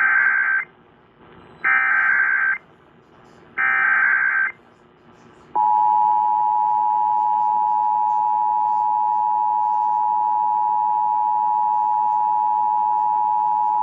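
Emergency Alert System activation heard over AM radio: three short bursts of SAME header data tones, which open an alert, then the steady two-tone attention signal (853 and 960 Hz), starting about five and a half seconds in and lasting about eight seconds.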